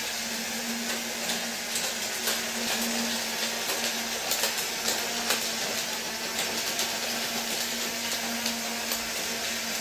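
Small electric motors of toy Disney Monorail Playset trains running steadily on the track: a constant hum over a hiss, with scattered light clicks.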